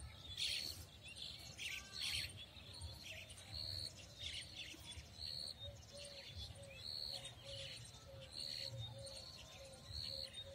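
Birds chirping: a short high chirp repeats about every three-quarters of a second, and from about halfway through a lower short note repeats faster, over a faint low rumble.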